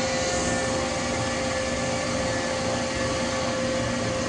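Danfoss H1P045 axial piston hydraulic pump running steadily on a test rig: a constant mechanical drone with a steady whine.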